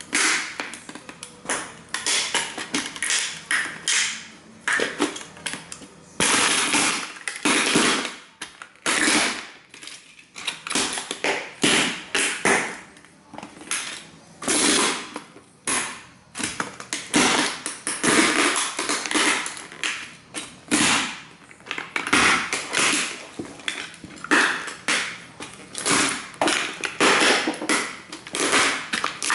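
Cowboy boots stomping on and grinding model train buildings, crunching and crackling the broken pieces underfoot in a long run of irregular stomps.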